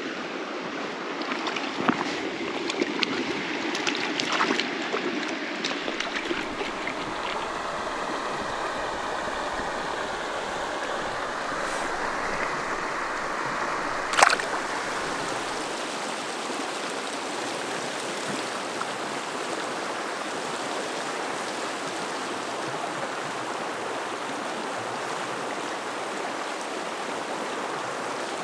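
Clear mountain creek running steadily over cobbles. A few clicks and small splashes come in the first few seconds, and one sharp click about halfway through.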